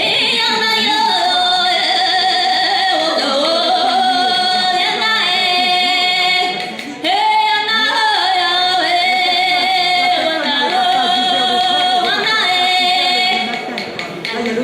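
Music: a woman's voice singing long, held, wavering notes, with a short break about seven seconds in.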